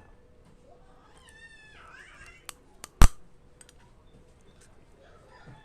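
A short pitched animal call, bending in pitch, followed by a few light clicks and one sharp knock about three seconds in, which is the loudest sound.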